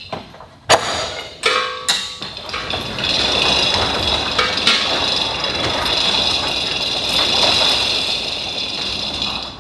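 Overhead shop door opening: three sharp clunks in the first two seconds, then the steady running rattle of the door rolling up, which stops near the end.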